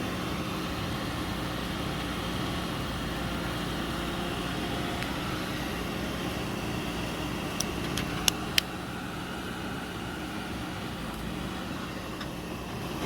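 JCB backhoe loader's diesel engine running steadily. About halfway through there are four sharp clicks in quick succession.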